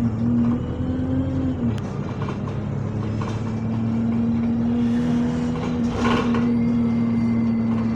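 Bus engine and drivetrain heard from inside the bus, running with a steady hum that dips briefly early on and then holds even. There is a short burst of noise about six seconds in.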